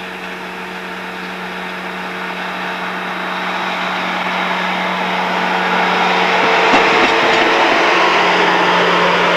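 Self-propelled railway maintenance-of-way machine running along the track, its engine and wheels growing louder as it approaches and passing close by in the last few seconds. A steady low hum runs underneath throughout.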